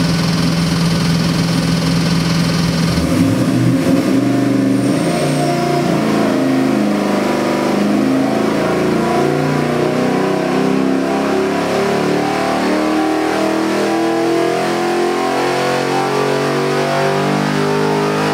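Chevrolet LS3 376-cubic-inch V8 crate engine on an engine dynamometer. It idles for about three seconds, then pulls under load in a steady sweep, rising in pitch from about 1,000 to about 6,100 RPM. This is the full-power pull in which it makes about 585 horsepower.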